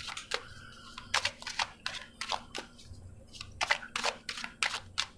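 Two decks of tarot and oracle cards being shuffled by hand: quick runs of crisp card clicks and slaps, in several groups with short pauses between them.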